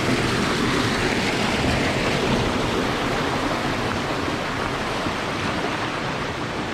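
Steady rush of water pouring through a small man-made dam in an irrigation channel.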